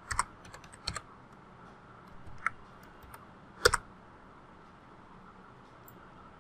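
A few separate computer keyboard keystrokes, the loudest a quick pair a little under four seconds in, then quiet near the end.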